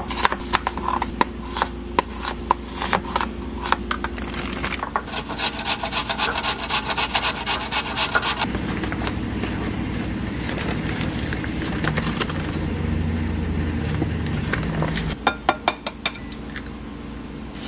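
A knife chopping an onion on a cutting board in repeated sharp strokes, quickening about a third of the way in. About halfway through it gives way to an onion being grated on a metal box grater for several seconds, and a few light knocks follow near the end.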